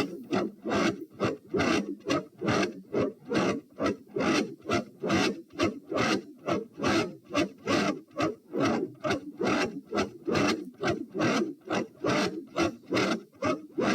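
Human heart sounds from the chest, a fast heartbeat played back in slow motion: a regular run of rasping beats, a few each second.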